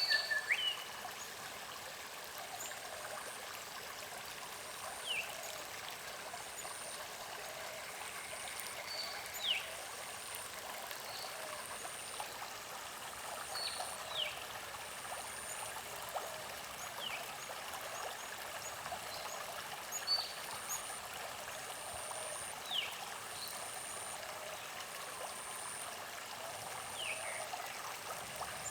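Creek water running steadily, with a bird giving a short falling whistle every four or five seconds and a thin, very high note repeating about every second and a half.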